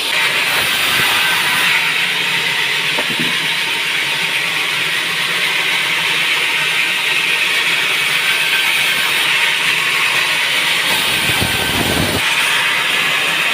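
Sawmill saw cutting pine, a loud steady hiss, with a brief deeper rumble about eleven seconds in.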